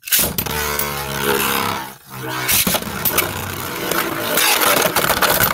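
Beyblade spinning tops launched into a plastic stadium, whirring and scraping as they spin, with a pitched whine that sinks over the first couple of seconds.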